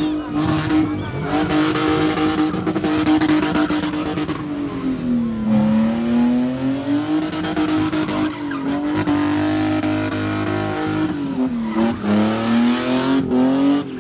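BMW E30 3 Series being spun, its engine held high in the revs while the rear tyres spin and screech; the pitch sags twice and climbs back.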